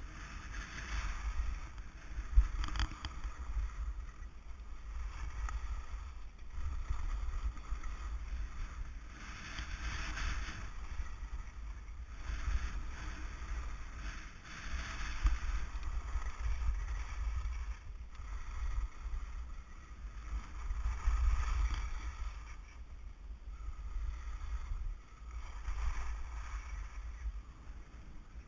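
Edges carving over packed, groomed snow during a descent. Each turn makes a swelling scrape or hiss every couple of seconds, over a steady low wind rumble on the camera microphone. There is one sharp knock a couple of seconds in.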